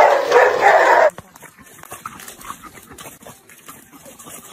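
A dog's loud barking, cut off suddenly about a second in; after it, only faint background noise.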